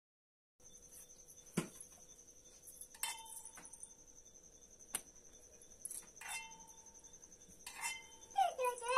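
Light clinks and taps of copper and brass puja vessels and a plate being handled, with a few short ringing tones. A voice comes in near the end.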